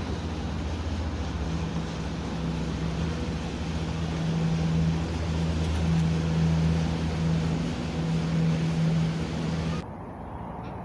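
Small boat's motor running steadily with a low hum. Near the end it cuts off abruptly and gives way to quieter sound.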